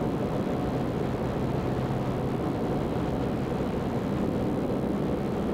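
Light aircraft's engine and propeller droning steadily in flight on final approach, with a low steady hum under even noise.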